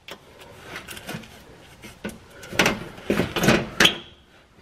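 Knocks, clicks and light rattles of the CR-V's metal under-engine shield being pushed up against the underbody and fiddled into place by hand, loudest about two and a half to four seconds in.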